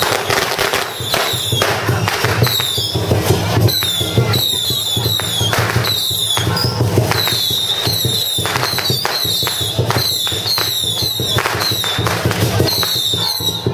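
Firecrackers going off in rapid, irregular bangs, thrown at close range, with many short high falling whistles among them.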